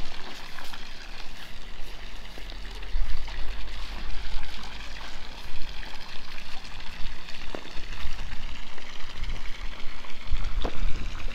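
Water splashing steadily into a swimming pool from a curved inlet pipe, with wind buffeting the microphone as a fluctuating low rumble.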